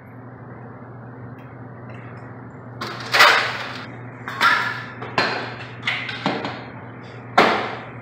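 Metal garage door opener rail clanking and knocking about six times as it is raised and set against the header bracket, the loudest knocks ringing briefly. A steady low hum runs underneath.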